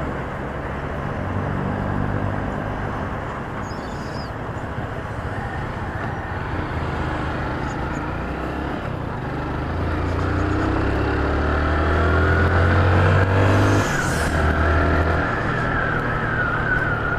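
Motorcycle engine running low at first, then pulling away and accelerating, its pitch rising through the revs with a break about fourteen seconds in, under wind and road noise.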